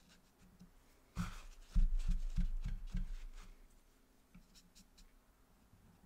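Watercolour brush dabbing and stroking on watercolour paper: a soft run of taps about three a second, starting about a second in and fading out after a couple of seconds, then a few faint ticks.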